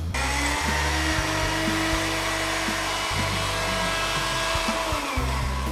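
Small electric mixer grinder (mixie) running, grinding curry leaves with semi-crushed peppercorns in its small jar. It starts sharply with a steady high whir and winds down in pitch near the end as it is switched off.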